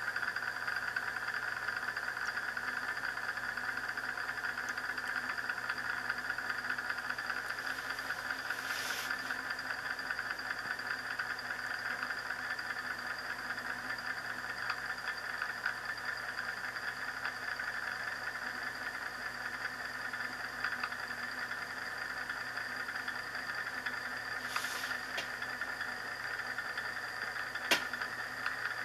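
Euler's disc, a tungsten carbide ring weighted with brass, spinning and rolling on its edge on a glass mirror, making a steady whirr. A single sharp click comes near the end.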